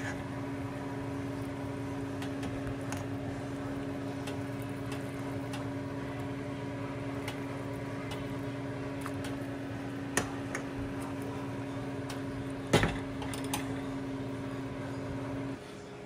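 Steady electric hum of a kitchen appliance motor, which stops abruptly near the end. A few sharp knocks fall over it, the loudest about three seconds before the end.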